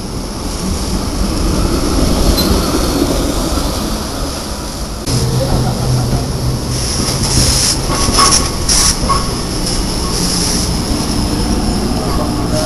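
SEPTA Kawasaki light-rail trolley running on street track with a low rumble. From about five seconds in a steady hum sets in, and around the middle the steel wheels squeal high-pitched as the car rounds a curve in the track loop.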